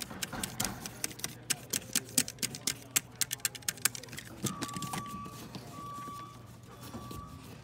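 Rapid, irregular clicks and taps as a rubber cord gasket is pushed and shimmied with a small tool into the seat around the filter paper of a polypropylene filter trolley, busiest in the first half. From about halfway a faint beep repeats in short dashes.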